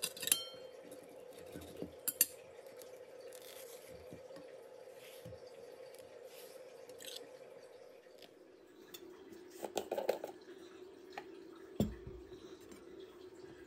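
Kitchen handling sounds at a table: a metal table knife clinks against a ceramic plate at the start and again about two seconds in, soft rustling as a banana is peeled, then a jar's plastic lid rattles as it is twisted off and something is set down on the table with a thump near the end. A steady hum runs underneath.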